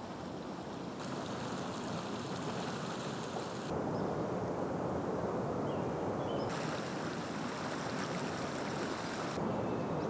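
Steady rushing of falling and flowing water from a waterfall and creek. The sound changes abruptly in tone and brightness a few times.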